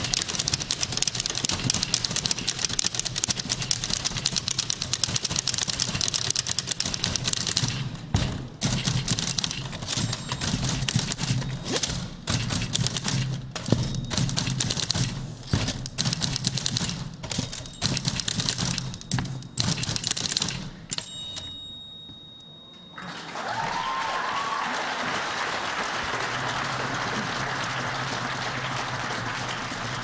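Several manual typewriters played together as a rhythmic ensemble: dense clattering keystrokes, then sparser strokes in rhythm with the carriage-return bells dinging. The typing stops about two-thirds of the way through, and after a brief pause the audience applauds.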